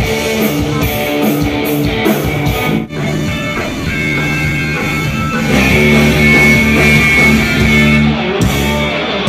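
Live rock band playing an instrumental passage on electric guitars and drums through a PA system. The music drops out for an instant about three seconds in and then comes back louder.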